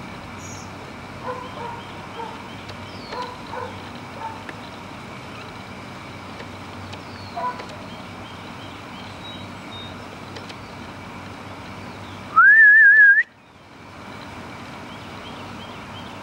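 Birds chirp faintly in the background. About twelve seconds in, a person gives one loud whistle, under a second long, that rises in pitch and then wavers, calling the Labrador puppy.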